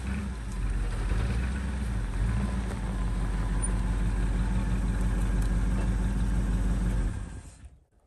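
Old Ford pickup truck's engine running steadily as the truck creeps forward a short way, then switched off about seven seconds in.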